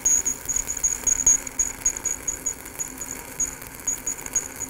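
Stick welding arc on a 7018 electrode, crackling and sizzling unevenly with frequent sharp pops, as a weave fill pass is run up a vertical steel plate.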